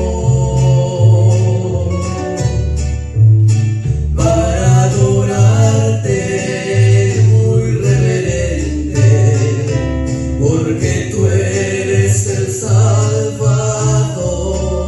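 Men singing a Christian song in Spanish, accompanied by acoustic guitars and a guitarrón playing a bass line that alternates between two low notes.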